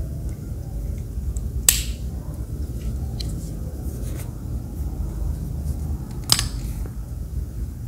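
Plastic toy wristwatch being handled: two sharp clicks, about a second and a half in and again near the end, the first as its flip-up lid snaps shut, with a few faint ticks over a steady low rumble.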